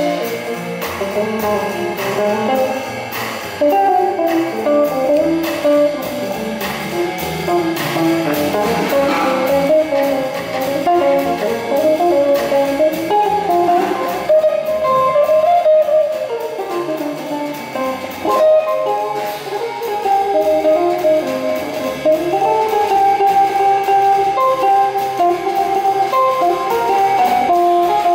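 Archtop hollow-body electric guitar played through a Fender amplifier, carrying a melodic jazz line of changing single notes and chords.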